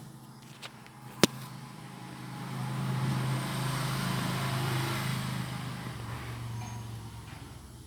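A motor vehicle passes by: a low engine hum and road noise swell for a few seconds, then fade. A sharp click comes about a second in.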